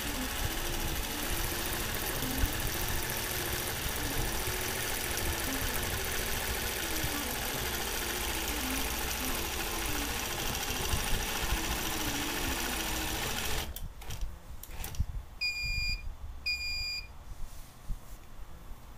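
Nolting Pro longarm quilting machine stitching under IntelliQuilter computer control, its motor pitch rising and falling as it sews curves. It stops about fourteen seconds in, and two short electronic beeps from the IntelliQuilter controller follow, about a second apart.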